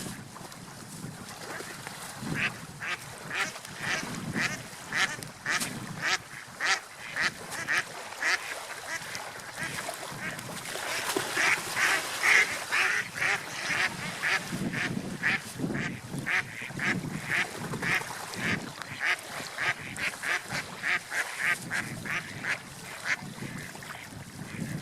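Ducks quacking over and over, about two to three short calls a second, busiest around the middle, over a low wash of water and wind.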